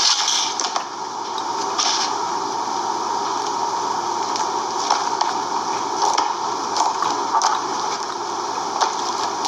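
Bubbly slime being squished and worked by hand: steady wet squelching with frequent small sharp clicks and pops.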